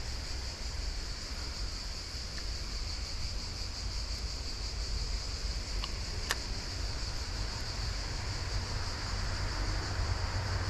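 Steady, high-pitched chorus of insects, likely crickets, over a low rumble. A single sharp click comes about six seconds in.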